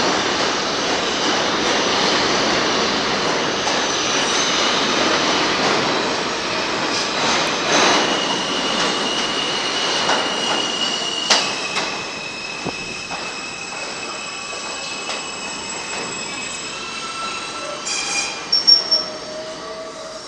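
R160B subway train running through the station and braking to a stop: heavy rolling rail noise fades over about ten seconds, giving way to a steady high-pitched squeal, with a few sharp loud clanks near the end.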